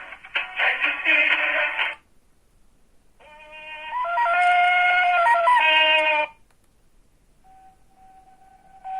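Sagem MyX-6 mobile phone playing ringtone melodies through its small speaker. One tune cuts off about two seconds in. After a short gap a second tune plays for about three seconds, growing louder over its first second. After another gap a steady single tone begins near the end.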